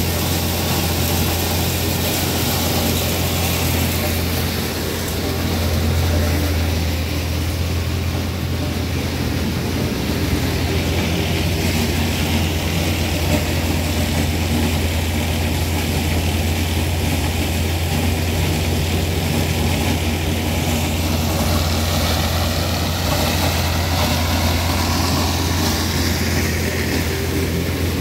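Grinder-mixer grinding ear corn, with a tractor running it steadily. A constant deep drone sits under an even rushing noise of corn being milled and blown out the discharge pipe.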